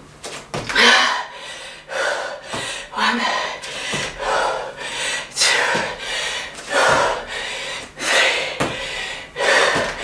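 A woman breathing hard from exertion, a sharp exhale about once a second, with dull thuds of bare feet landing on an exercise mat from repeated jump squats.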